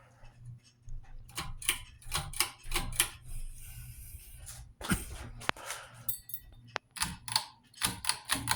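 Several ceiling fans running at medium speed with a steady low hum, under a string of irregular sharp clicks and knocks.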